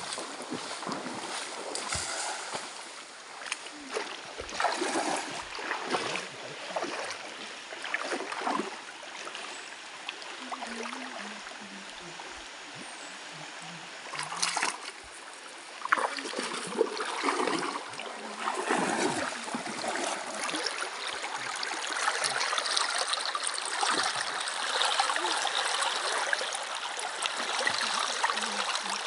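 Feet wading through a shallow, rocky stream, splashing with each step over the rush of water running over stones. In the second half the rushing water grows louder and steadier.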